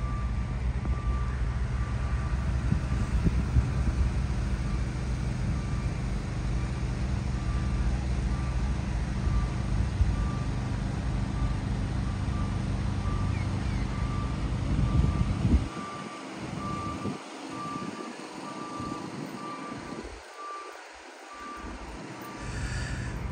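A reversing alarm beeping at an even pace over a steady low engine rumble. The rumble drops away abruptly about two-thirds of the way in, while the beeping carries on.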